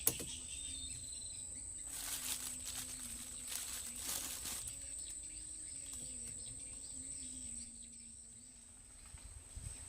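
Insects trilling in a steady high-pitched drone, with two brief rustling noises about two and four seconds in.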